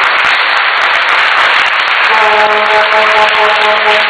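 Crowd cheering and applauding in a hall, a loud steady roar of clapping and shouting. About two seconds in, a single steady horn-like tone sounds over it and holds for a little over two seconds.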